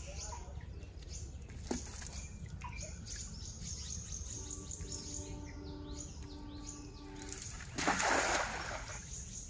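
A cast net landing flat on a pond, its weighted rim slapping down onto the water in one brief splash near the end. Birds chirp in the background.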